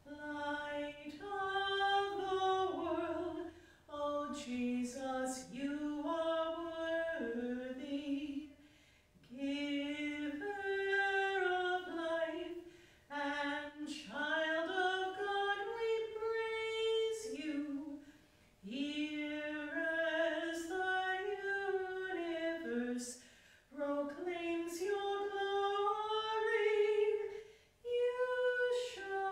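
A woman's voice singing a hymn solo and unaccompanied, in phrases of a few seconds with short breaths between them.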